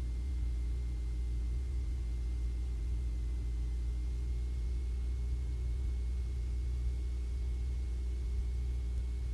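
Cessna 150's four-cylinder Continental O-200 engine and propeller droning steadily at reduced power during the approach, heard from the cabin as a low hum. The lowest part of the drone drops off near the end.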